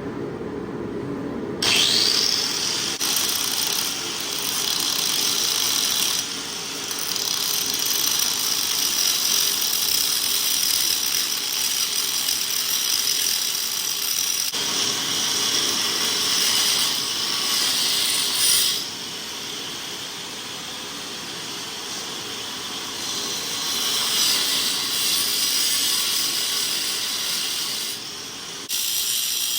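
Angle grinder spinning up a couple of seconds in and grinding into the cast aluminium brake and fender tabs on motorcycle fork lowers, a loud high whine that sags in pitch as the disc bites. It lets up about two-thirds of the way through, then bears in again for the last few seconds.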